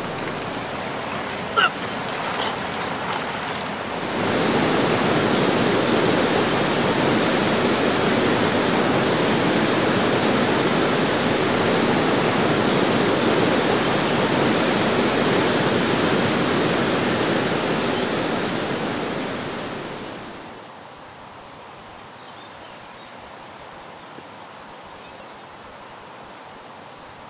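Water noise: a loud, even rush of churning, bubbling water starts about four seconds in, holds steady, then fades away about two-thirds of the way through, leaving a faint, steady hiss of flowing river water.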